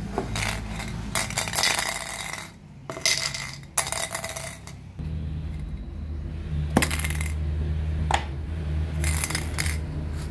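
Empty aerosol spray paint can handled on a wooden table: a string of irregular metallic clinks and scrapes as the can is moved and its plastic cap is pulled off. A steady low hum comes in about halfway.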